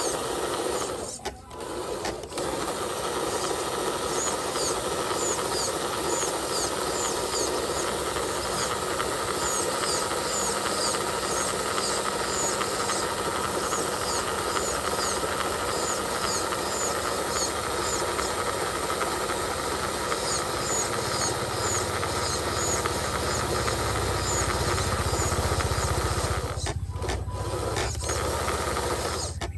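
The electric motor and gearbox of a radio-controlled Hino 500 model truck run steadily as it tows a loaded trailer, a whirring with gear chatter. It cuts out briefly about a second in and again near the end, and grows heavier in the low end in the last third.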